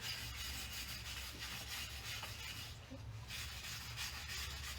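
Hand scrubbing of a brake rotor to clear off brake dust: repeated rasping back-and-forth strokes that swell and fade.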